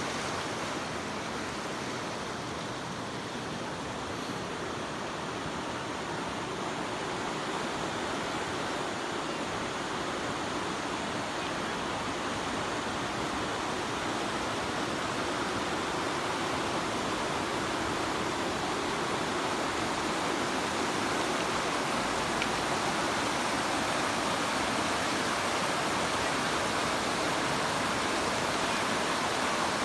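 River water rushing and splashing over rocks, a steady, even noise that grows a little louder over the stretch.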